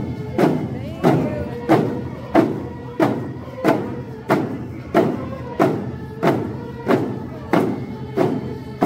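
Drums struck in a steady, even beat, about three strikes every two seconds, under a group of voices singing a Lummi paddle song.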